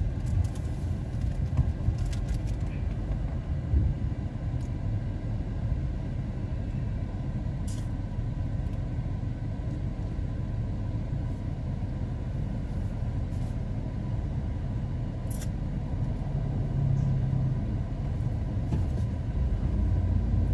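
Steady low rumble of a car heard from inside its cabin while driving slowly in traffic, with a couple of brief faint clicks.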